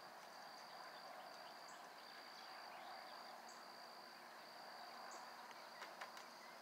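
Faint insects: a steady high trill broken by brief gaps, with a short, higher chirp about every second and a half to two seconds, over a low hiss.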